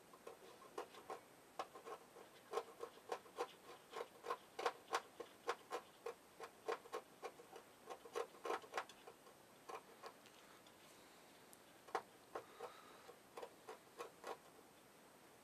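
A small metal tool scraping the coating off a copper pad on a TV LED backlight strip to bare it for soldering, making faint, irregular ticks, two or three a second, that thin out and pause about ten seconds in.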